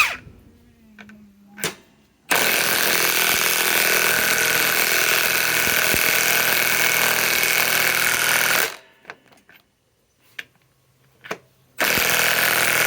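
Milwaukee M18 Fuel high-torque impact wrench hammering as it drives a 6-inch lag bolt: one long run of about six seconds, then a shorter run of about two seconds near the end.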